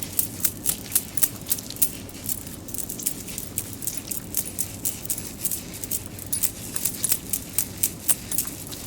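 Fingernails scratching and rubbing through hair at the scalp, working in an oil treatment: a steady run of short, crisp scratches, several a second.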